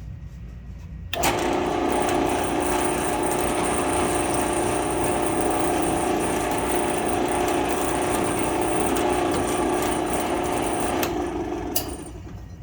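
Drill press switched on about a second in and running steadily with a chamfering cutter deburring the top side of a freshly drilled hole in a steel bracket, then switched off and spinning down near the end, with a sharp click.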